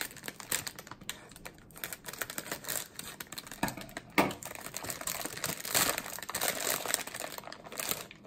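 Crinkly plastic cookie bag being cut open with scissors and pulled apart by hand: a run of irregular crackles and rustles, with one sharp click about four seconds in.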